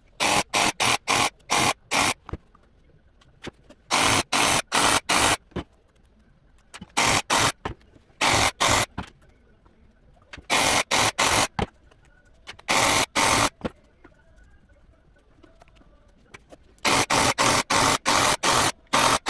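Hair-implanting wig machine running in short, rapid bursts of hissing noise, about three a second, in groups of several strokes separated by pauses of a second or two as it sets hair into a wig base.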